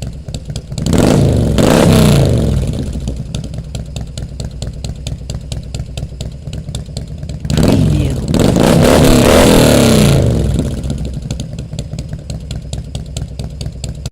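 Harley-Davidson Road King Custom's V-twin engine idling with a low pulsing beat, blipped twice: a short rev about a second in, then a longer rev of about three seconds from the middle on, each time rising and falling back to idle.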